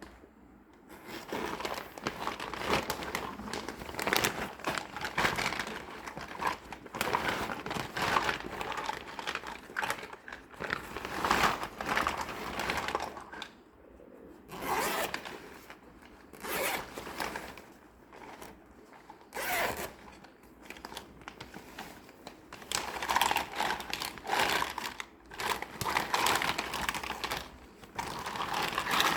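Packaging being unwrapped by hand: crinkling and tearing in irregular bursts of a second or two, with sharp handling clicks and short pauses.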